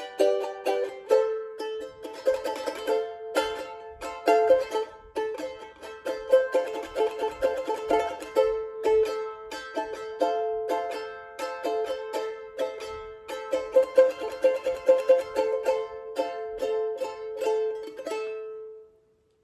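Tahitian ukulele, its eight steel-bright strings strummed fast in an instrumental outro, then dying away about a second before the end.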